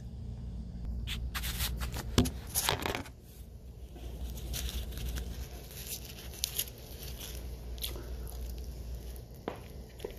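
Handling noise close to a phone's microphone: a cluster of scrapes, rustles and knocks, the loudest about two seconds in, then scattered smaller rustles, over a low steady hum.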